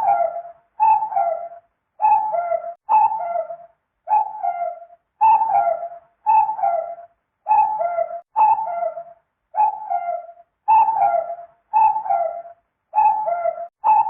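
Cuckoo calling "cu-coo" over and over. Each call is two notes with the second lower, repeating about once a second, about thirteen times in a row.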